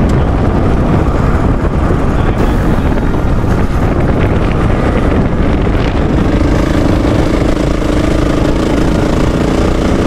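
Off-road trail motorcycle engine running while riding a dirt track, under a constant low rumble. About six seconds in, a steadier engine note comes through.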